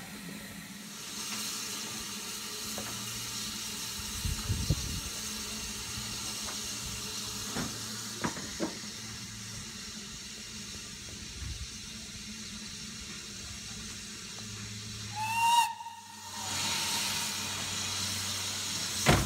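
Steam locomotive standing and hissing steadily, with a few knocks. About three-quarters of the way through comes one short blast on its steam whistle, after which the steam hiss comes back louder.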